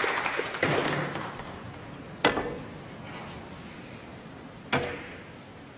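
Applause dying away, then the sharp click of snooker balls twice: the cue striking the cue ball about two seconds in, and ball kissing ball about two and a half seconds later.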